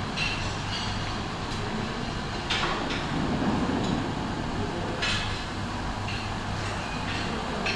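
Buffet dining-hall clatter: crockery and cutlery clinking with short ringing knocks every second or two, over a steady low hum.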